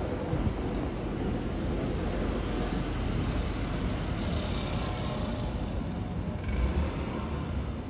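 Steady city street background noise: a low, even rumble of distant traffic with no distinct event, swelling briefly near the end.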